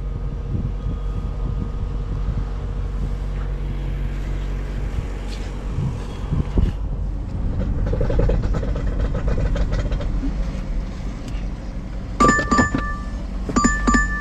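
Low rumble of movement and handling noise. Near the end comes a short two-tone electronic chime, twice within about a second and a half, each with a few clicks.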